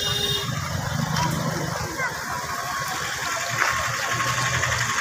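A vehicle engine running steadily at low revs, with people chattering in the background.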